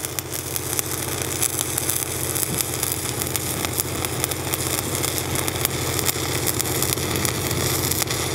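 Stick-welding arc crackling steadily as a 7018 electrode burns along a fillet weld on a steel support, held as a tight arc. The engine-driven rig welder runs underneath with a steady hum.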